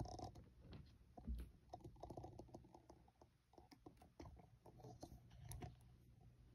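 Faint, irregular light clicks and taps, several a second, from a phone being handled and carried low across tatami mats.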